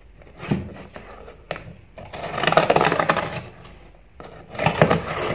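A small cutting blade slicing through the packing tape and cardboard of a parcel. A couple of sharp clicks are followed by a rapid rasping stretch about two seconds in that lasts over a second, then a shorter one near the end.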